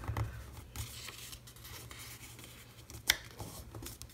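Cardstock being handled and folded by hand, with soft paper rustles and slides and one sharp tap about three seconds in.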